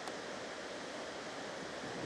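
Steady running noise of a Pacific Surfliner passenger train in motion: an even rush of wheels on rail and car noise, without change.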